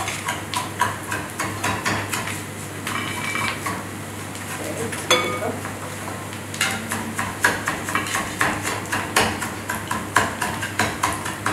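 A wooden spoon stirring in a mixing bowl, knocking and scraping against its sides, with clinks of other utensils. The knocks come more regularly in the second half, about two or three a second.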